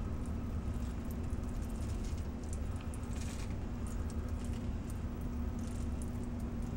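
Thin stream of water from a burette falling into a sink, splashing steadily with scattered small ticks of droplets, over a steady low hum.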